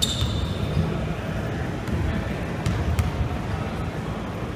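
Basketball game in a gym: a short, high squeal at the very start, then a few sharp knocks of the ball bouncing on the hardwood over the hall's steady low rumble.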